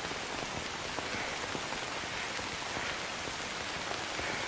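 Steady rain falling, with many single drops striking as small ticks through an even hiss.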